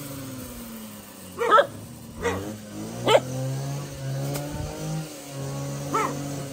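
A pack of dogs crowding in for food, giving four short, sharp barks and yelps, the loudest about a second and a half in, over a steady low drone.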